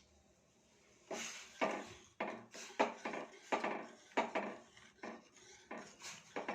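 A metal utensil clinking against a steel pot in quick, irregular knocks, about two to three a second with a short ring to each. The clinks start about a second in, after near quiet.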